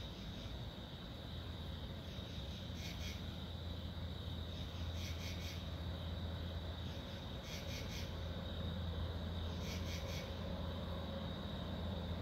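Low rumble of the Sperry rail test car's engine coming closer from a distance, slowly growing louder. A short high chirp repeats every two to three seconds over it.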